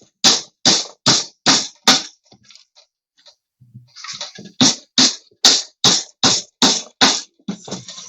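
Hammer driving nails into a plywood cage box: quick, even blows about two and a half a second, a run of about five, a pause of about two seconds with a few light taps, then about eight more.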